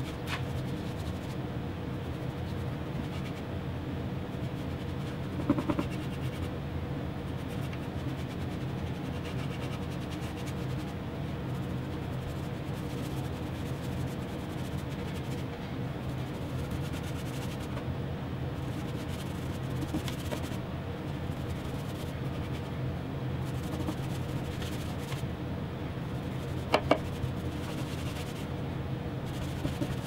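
Paintbrush rubbing and scratching on plywood as water-based polyurethane is brushed onto the inside of a drawer box, over a steady low hum. Two short knocks, about five seconds in and again near the end.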